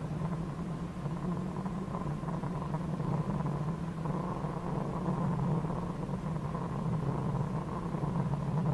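Rally car engine heard inside the cockpit, a steady drone that holds much the same pitch throughout as the car runs along a gravel stage.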